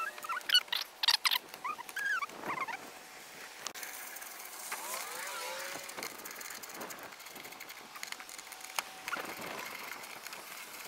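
Loose metal bus bars and terminal hardware clinking as they are handled on a tray of NiMH battery cells: a quick run of sharp clinks in the first second and a half, then quieter handling noise.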